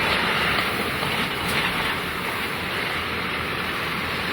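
Steady road noise from a moving car, heard inside the cabin: tyre and engine rumble on snowy roads.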